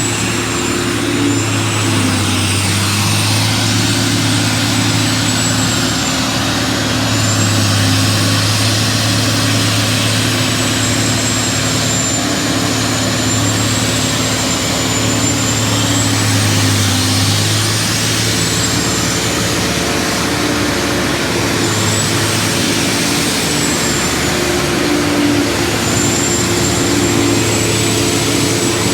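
Tub grinder at work grinding hay and straw bales: a diesel engine runs steadily under load beneath a dense grinding noise, with a thin high whine that wavers slowly up and down in pitch.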